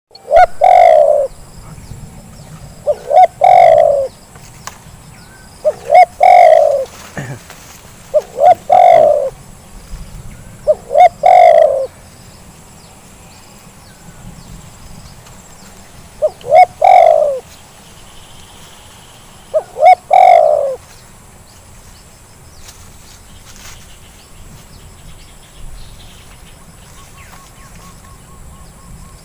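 Spotted dove cooing: seven calls, each a couple of short notes and then a longer falling coo, repeated every few seconds and stopping about 21 seconds in.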